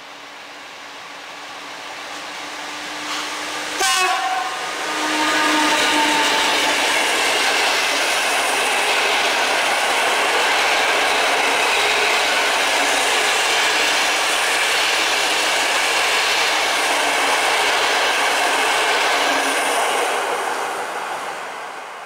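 Polish EP09 electric locomotive sounds its horn briefly about four seconds in, the Rp1 'attention' warning signal to people by the line. Then its TLK passenger train passes at speed, the coaches' wheels on the rails making a loud steady rush that fades near the end.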